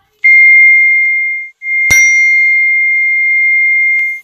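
Phone text-message alert tone: a high, steady ding held for over a second, then a second ding at the same pitch, held for about two and a half seconds, with a sharp click just after it starts.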